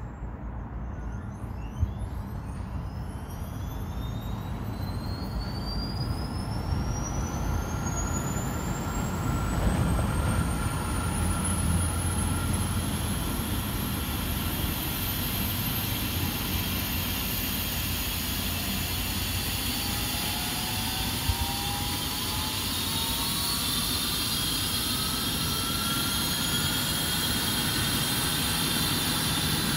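Air ambulance helicopter, an Airbus EC135 type, starting up on the ground: a turbine whine climbs steadily in pitch through the first ten seconds or so over a low, gradually building rumble. A second rising whine joins about two-thirds of the way in.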